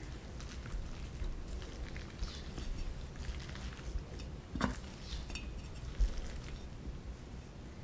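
A wooden spoon mixing sticky rice and vegetables in a stainless steel bowl: soft wet scraping and scattered light clicks against the metal, with one sharper knock a little past halfway and a low thump soon after.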